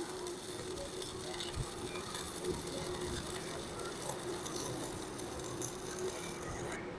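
Arc of a stick (MMA) welder, a Protech MK250 inverter, crackling steadily as a 4 mm electrode burns at the machine's maximum 250 A, with a steady hum underneath. The arc is very large at this setting, hot enough to burn the ground clamp.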